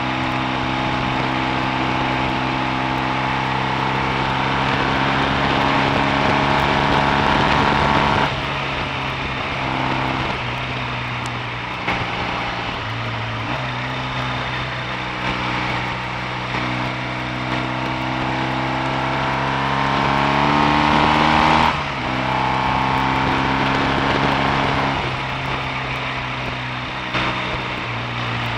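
Triumph T140V's 750 cc parallel-twin engine pulling under load on the road, its pitch climbing as it accelerates. The revs drop sharply about eight seconds in and again about twenty-two seconds in, as at a gear change, then climb again.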